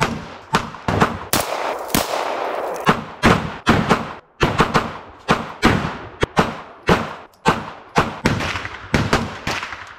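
A run of gunshots, roughly two a second at irregular spacing, each followed by a short echo.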